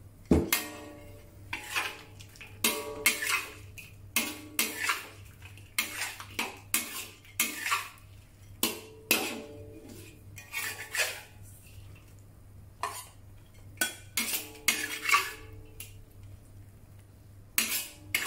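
Stainless steel wok spatula scraping and knocking against a wok in quick, uneven strokes, some with a brief metallic ring, as sauced shrimp are scooped out of the pan.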